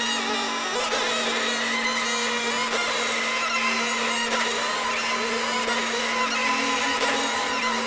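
Electroacoustic music: a dense, steady noisy texture over a held low drone, with several layered tones above it.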